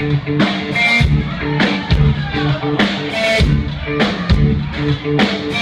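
Live rock band playing, with drums and guitar.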